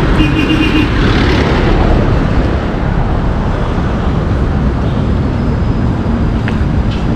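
Street traffic: vehicle engines running close by, with a vehicle passing about a second in.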